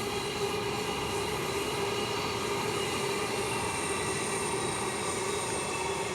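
Queensland Rail electric multiple-unit passenger train running past: a steady rumble with a faint mix of steady whining tones over it.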